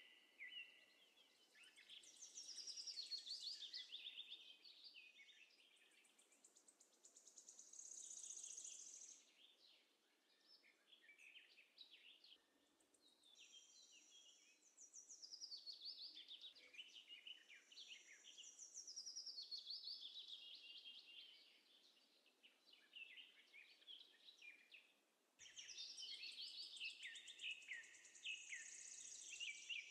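Faint birdsong: many rapid, high chirps and trills coming in waves, rising and falling in loudness.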